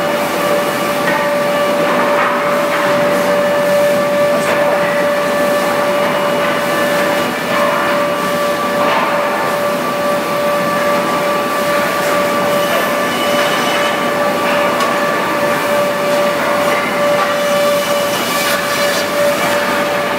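REX wood planing machine running steadily, a constant loud whine over a noisy rush.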